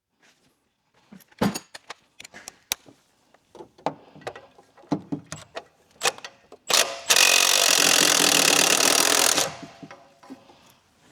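Metal tools clinking and knocking for several seconds, then an impact wrench runs in one loud burst of about two and a half seconds, working a fastener such as a motor mount nut.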